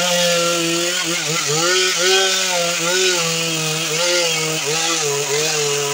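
Stihl chainsaw running under load, cutting across a log; the engine note dips and recovers repeatedly as the chain bites into the wood.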